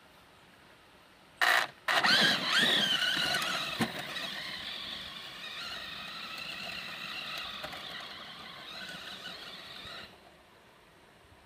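Electric motor and drivetrain of an Arrma Kraton RC truck whining at full throttle. It starts suddenly about a second and a half in, stutters once, then swoops up and down in pitch as it pulls away. It settles into a steady high whine that fades slightly as the truck drives off, and cuts off suddenly near the end.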